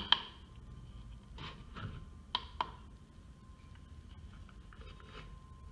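Button presses on a digital corner-weight scale's control unit, switching its readout from grams to ounces: a sharp click right at the start, then a few lighter clicks, two of them close together about two and a half seconds in.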